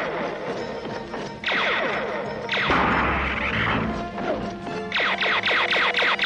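Animated-battle sound effects over a dramatic music score: bursts of falling, zapping tones and a crash about three seconds in.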